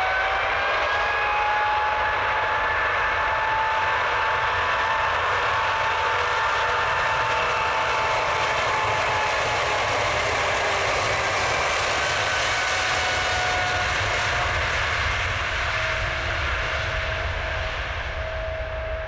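Boeing 777 jet engines running at takeoff power: a loud, steady roar with several whining tones that slowly rise in pitch. The sound eases off near the end.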